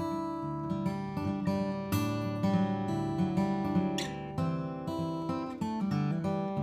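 Background music played on acoustic guitar, with strummed and plucked notes.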